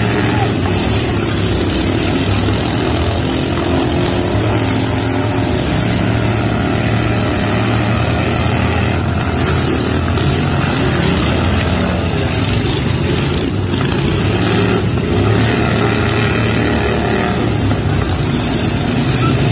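Many riding lawn tractor engines running at once under throttle, a loud steady mechanical drone.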